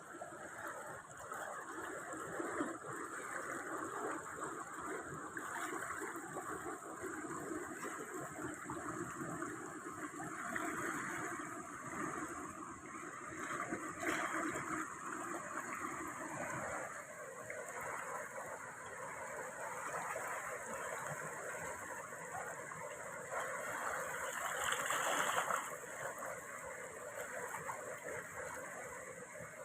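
Natural stream water flowing steadily, with a continuous rushing and gurgling, swelling briefly louder near the end.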